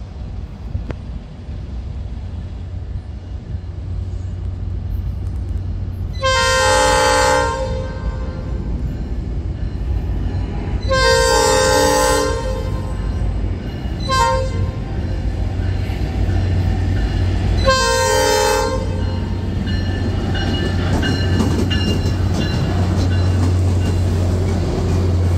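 Tri-Rail diesel locomotive's air horn sounding the grade-crossing signal: two long blasts, a short one, then a final long one. After that the locomotive's engine and wheels rumble louder as it passes close by.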